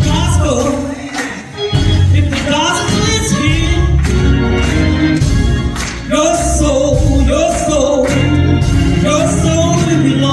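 Gospel song with singing over a live band: bass and drums under the voices.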